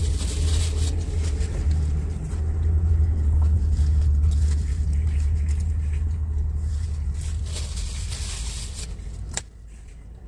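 A motor vehicle's engine gives a steady low rumble that slowly fades, then a sharp click about nine seconds in, after which the sound drops much quieter.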